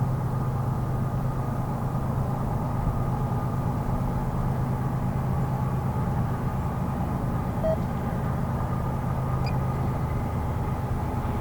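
Freight train rolling past on the rails: a steady, unbroken noise of wheels and cars with a low hum and a faint, constant higher tone.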